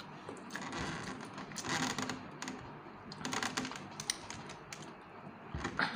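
Close-up eating sounds: irregular small clicks and smacks of chewing, with fingers picking at rice and noodles in a foil-lined tray.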